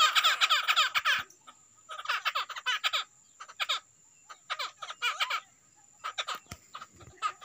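Caged black songbirds calling in fast rattling runs of short chirps, several bursts with short pauses between them.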